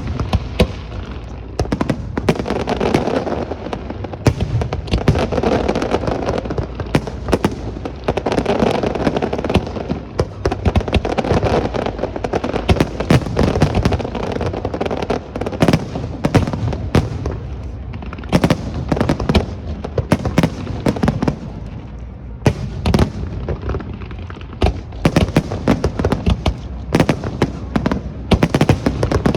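Aerial fireworks display: a rapid, irregular run of sharp bangs and crackles with a continuous crackling rumble beneath them.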